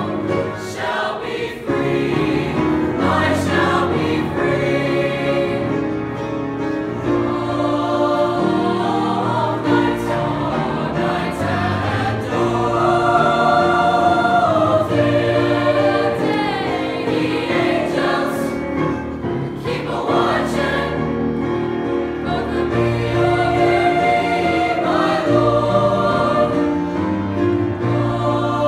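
Mixed-voice high school choir singing together, several voice parts held in sustained chords.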